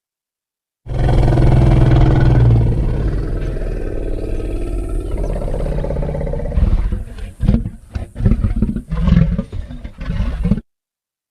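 Sinotyrannus dinosaur sound effect: one long, deep roar of about six seconds, followed by a quick run of short grunts that stop suddenly near the end.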